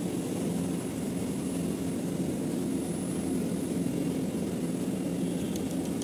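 Air-conditioning unit running: a steady machine hum with a low drone, with a few faint clicks near the end.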